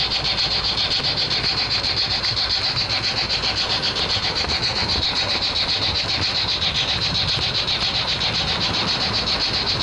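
Märklin model train running along the track, heard from a wagon it carries: a steady high whine with a fast, even clatter of the wheels on the rails.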